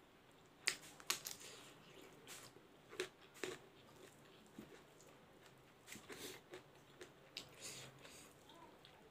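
Quiet sounds of someone eating rice by hand: scattered wet clicks and smacks from chewing and from fingers gathering rice. The sharpest come about a second in and around three seconds.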